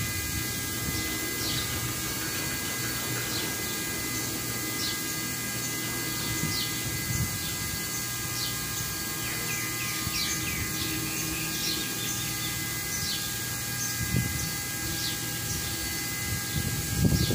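Birds chirping in short repeated calls over a steady mechanical hum with a few thin constant whining tones. Near the end a louder rumble comes in.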